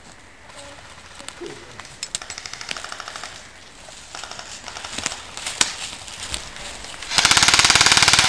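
Airsoft guns firing full-auto: fainter bursts of rapid clicking through the middle, then a loud, close burst of rapid fire from about seven seconds in that runs on to the end.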